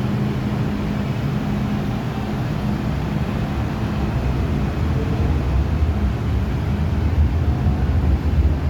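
MTR Tsuen Wan Line M-train electric multiple unit running in an underground metro station: a steady hum and rumble of motors and wheels that grows louder from about halfway through.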